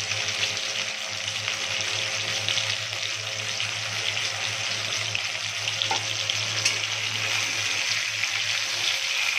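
Hilsa fish heads sizzling steadily as they fry in hot oil in a kadai, over a steady low hum. A couple of light clicks sound about two-thirds through, and a spatula turns the pieces near the end.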